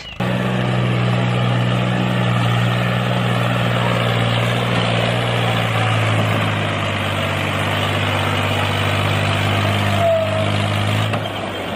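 Tractor engine running with a steady low drone. The sound starts abruptly and stops shortly before the end.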